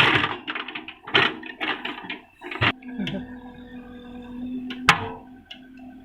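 Tata Hitachi SHINRAI Prime backhoe loader's diesel engine running steadily. Over it, the bucket digging a trench gives repeated scraping and rattling bursts and several sharp knocks of earth and stones.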